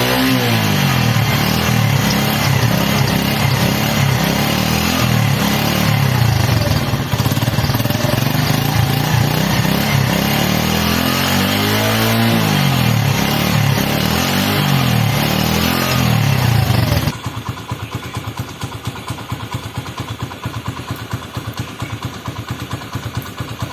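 Honda CD 70's single-cylinder four-stroke engine running and being revved up and down several times. About two-thirds through it drops suddenly to a quieter, even idle with a rapid steady beat.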